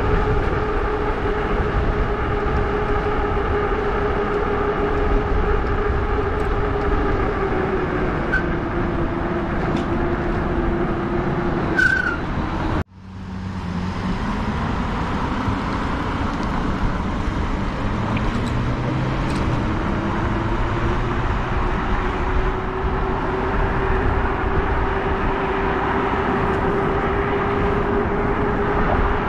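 Lectric XP e-bike's rear hub motor whining steadily under wind noise on the microphone. About halfway through the sound cuts out abruptly, then the whine returns low and climbs steadily in pitch as the bike picks up speed.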